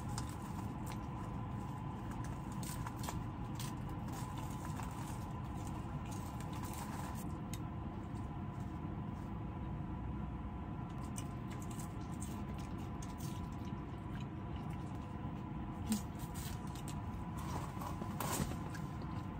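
A small dog chewing and gnawing a chew treat, with scattered soft clicks of its teeth, over a steady background hum.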